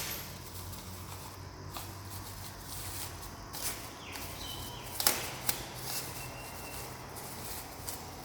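Handling noises: several sharp clicks and knocks, the loudest about five seconds in, over a steady low hum.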